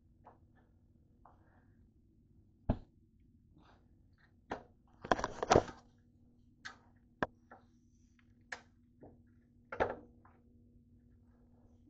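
Light knocks, taps and clicks as grilled toast slices are handled on an open electric contact grill, over a faint steady hum. The loudest is a short cluster about five seconds in.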